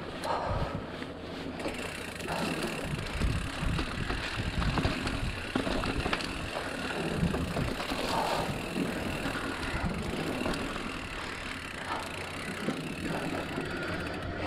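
Mountain bike being ridden over a dirt trail: uneven tyre rumble with scattered rattles and knocks from the bike.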